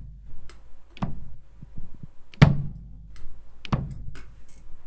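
Bass drum struck with a pedal, three hits about 1.3 seconds apart, each with a small tap of the foot slapping the pedal board just before the beater lands. The extra tap is the sign of a heel-down stroke in which the foot disconnects from the pedal board.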